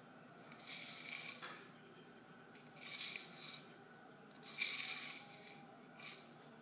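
Dry kibble rattling inside a Premier Kibble Nibble plastic treat-dispensing ball as a dog noses and rolls it across a rug, in four short clattering bursts about a second or more apart.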